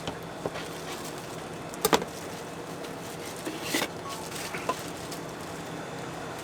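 Food-stall prep sounds: a few sharp clicks and knocks of kitchen utensils, a close pair about two seconds in and a scrape-like burst near four seconds, over a steady background hiss.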